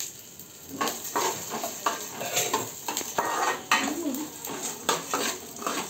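A metal spoon stirring and scraping in a cooking pan, with irregular clinks against the pan, over a light sizzle of frying.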